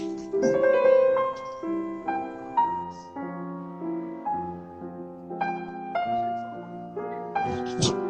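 Piano music playing a slow melody of held notes, changing about once or twice a second.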